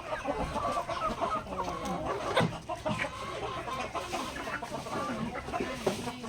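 Backyard chickens clucking, many short overlapping calls, with a sharp tap about two and a half seconds in.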